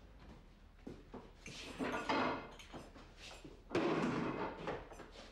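Café chairs being dragged and shuffled on the floor as people sit down at a table. There are two longer scrapes, about two seconds in and about four seconds in, with small knocks between them.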